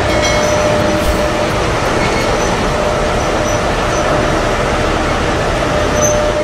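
BelAZ 75710 haul truck, with its two 16-cylinder diesel engines, driving by under power. The drive makes a loud, steady noise with a constant whine running through it.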